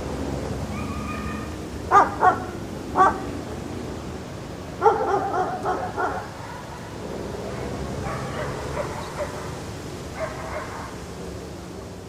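Dog barking: sharp single barks about two and three seconds in, a quick run of barks around five to six seconds, then softer barks and yips.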